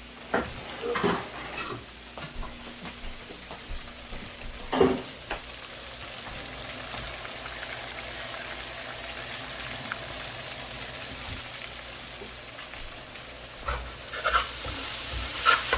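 Floured fish pieces frying in a hot pan: a steady sizzle, with a few short knocks of a utensil on the pan about a second in and near five seconds, the sizzle growing louder near the end.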